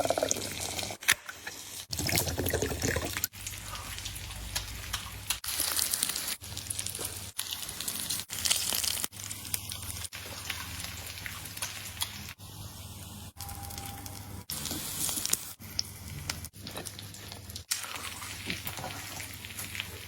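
Wet, crackly eating sounds of mukbang chewing and slurping, in short spliced bits that cut off and restart abruptly every second or two.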